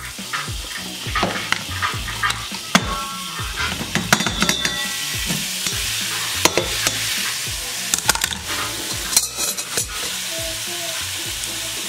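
Thin strips of beef sizzling as they are dropped into hot olive oil in a stainless steel pot over high heat. The hiss thickens after about a second as more meat goes in, with scattered sharp clicks and taps.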